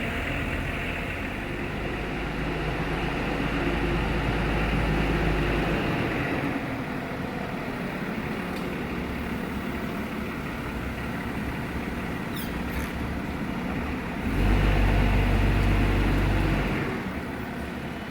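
A heavy machine running in a workshop, with a deep low rumble that is strong for the first few seconds, eases off, then swells again for a couple of seconds near the end.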